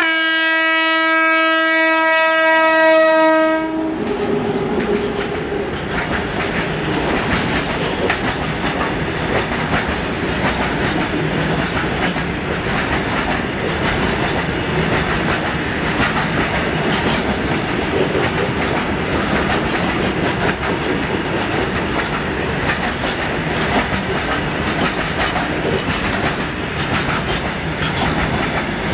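Electric freight locomotive's horn sounding one long steady blast of about three and a half seconds. Then a long rake of covered goods wagons rolls past close by, a steady rumble with rapid clicking from the wheels on the rails.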